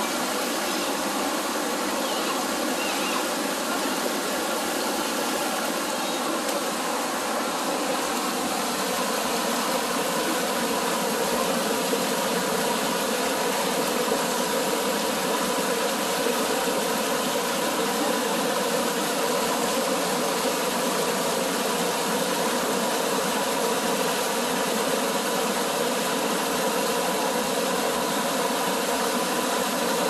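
Mountain stream water rushing and splashing over rocks in a small cascade, heard close up as a steady, full rush.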